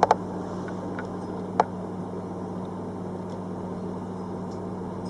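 A few sharp clicks and taps of hands working small plastic wiring connectors: two at the start, then single clicks about one and one and a half seconds in. A steady low hum runs underneath.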